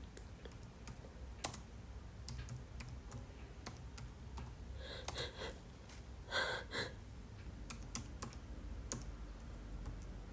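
Irregular tapping of keys on a computer keyboard during typing, fairly quiet. Two short breathy sounds come about five and six and a half seconds in.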